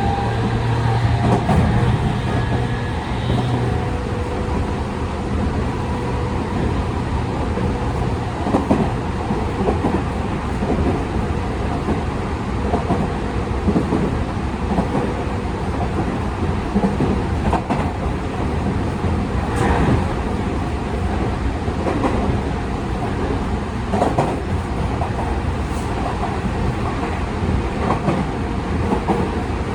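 Tokyu 5000 series motor car with Hitachi IGBT-VVVF drive and TKM-98 traction motors, heard from inside the car running at speed: a steady rolling rumble, with wheels clicking over rail joints now and then. A steady motor and inverter tone fades away within the first few seconds.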